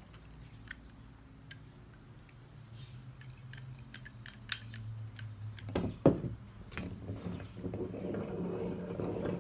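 Steel 3/4-inch pipe clamps being handled and their screw cranks turned: light metallic clicks and clinks, a louder knock about six seconds in, and a steadier low rattle near the end.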